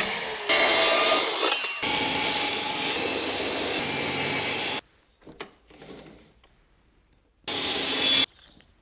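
Power saws cutting plywood in short clips: a circular saw running along a guide rail, then a Metabo table saw. The sawing stops about five seconds in, and a brief burst of cutting comes near the end.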